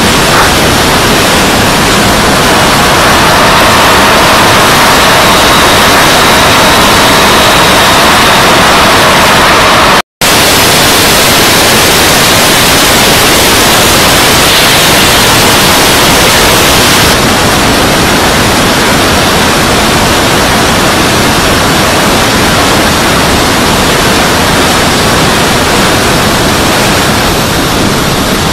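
Loud, steady rushing noise from a model jet in flight, its engine and the airflow over it overloading the onboard camera's microphone. The sound cuts out for a split second about ten seconds in. The hiss eases a little after about seventeen seconds.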